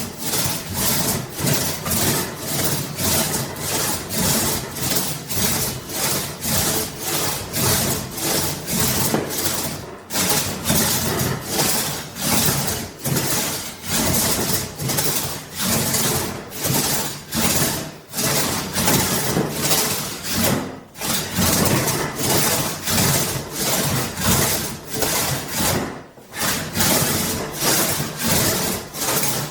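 Large antique British-made one-man crosscut saw cutting through partially dried apple wood, a rasp on each push and pull stroke at about two strokes a second. The rhythm breaks briefly a few times, about 10, 18, 21 and 26 seconds in.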